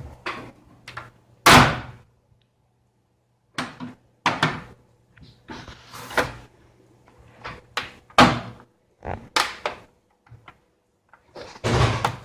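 Plastic bottom cover of an MSI GL62 laptop being pried off, giving an irregular series of sharp clicks and knocks as its clips snap loose and the panel is handled. The loudest snaps come at about a second and a half in, around eight and nine seconds, and near the end.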